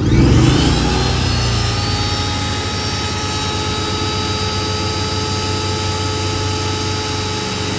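Active 2.0 electric pressure washer switched on: its motor and pump start with a sudden surge, the whine climbing over about the first second, then run steadily while the pump primes.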